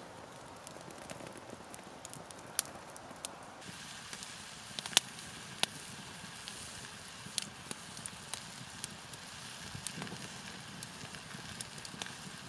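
Wood campfire crackling, with scattered sharp pops from the burning logs. About four seconds in, a steady hiss comes in, fitting food frying in a pan set over the flames.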